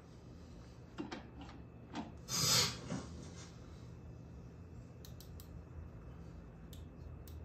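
Light metal clicks and handling as a pneumatic impact wrench is fitted to a flywheel puller's screw, with one short burst of air hiss from the impact wrench about two and a half seconds in, over a faint low hum.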